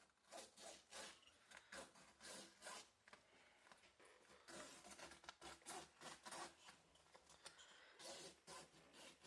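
Razor blade slicing through PhotoTex sticker material held under tension, heard as a faint series of short scratchy strokes, about two or three a second, bunching together about halfway through.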